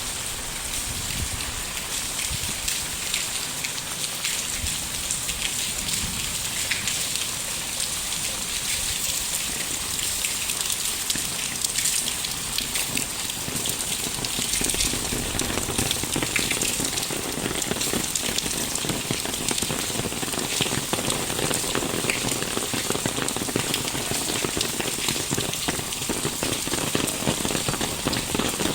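Steady rain falling on a street and roofs: a dense patter of individual drops that grows fuller and lower about halfway through.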